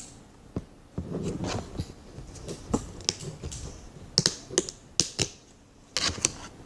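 Slime being squeezed and played with in the hands, giving irregular sharp clicks and pops, more of them in the second half.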